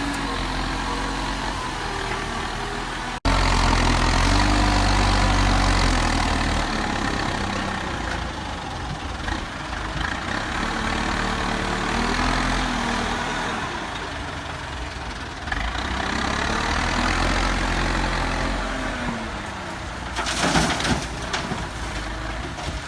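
Heavy diesel engines of construction machinery running, their pitch rising and falling as they rev, with a sudden change about three seconds in to a louder, deeper engine. A short noisy burst comes near the end.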